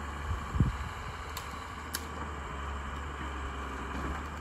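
Cummins 6BT5.9 six-cylinder diesel of a Hyundai Robex 200 LC crawler excavator running at a distance, a steady low hum, with a low thump about half a second in.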